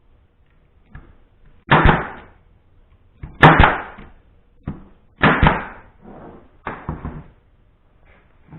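Porter-Cable pneumatic brad nailer firing four brads into wood, a sharp loud shot about every one and a half seconds, with fainter clicks in between.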